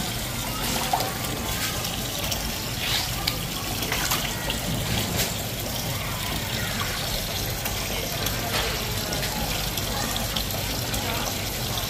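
Steady rush of running water from a tap, with a few light knocks as a fish and gloved hands are moved on a plastic cutting board.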